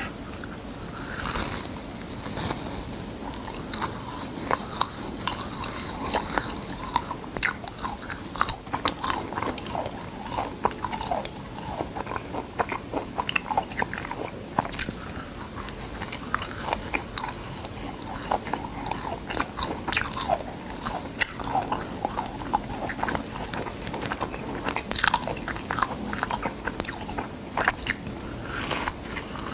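Crisp crackling and crunching as thin sheets of dried gamtae seaweed are torn and bitten, with chewing, in a dense run of small cracks that bunch louder about a second and a half in and again near the end.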